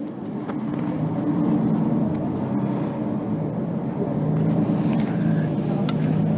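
Interior sound of a Mercedes-Benz Citaro C2 G articulated city bus: its diesel engine running with a steady drone that grows louder about a second in. A couple of light clicks come near the end.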